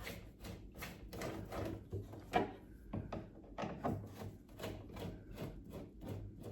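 Phillips head screws being turned out by hand with a screwdriver: a string of short, irregular clicks and scrapes.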